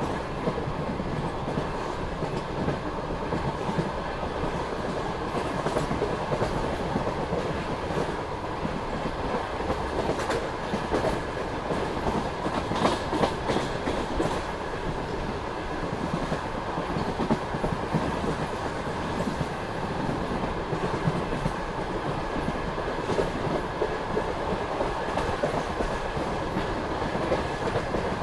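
Passenger train carriage running along the line, its wheels clattering over the rail joints over a steady rolling rumble, with a cluster of sharper clicks near the middle.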